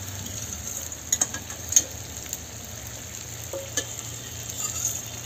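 Chicken pieces frying in oil and spice paste in a clay pot, a steady sizzle with a few sharp pops and crackles now and then.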